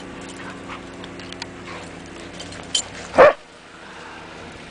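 A dog barks once, short and loud, about three seconds in, over a steady low hum.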